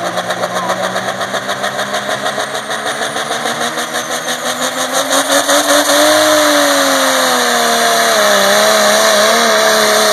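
Diesel pickup truck engine at full throttle at a truck pull, pulling a weight-transfer sled. For about six seconds it runs with an even, quick pulsing that grows louder. Then it gets louder and a rising-then-falling drone sets in as the engine pulls down under the sled's load, ending in a wavering steady tone.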